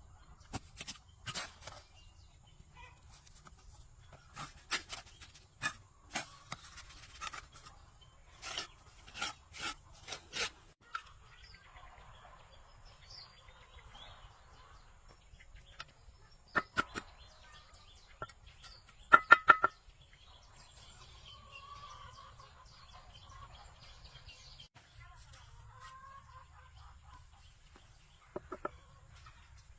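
A series of sharp knocks, spaced about half a second to a second apart at first, then a pair, then a quick run of four loud knocks about two-thirds of the way through.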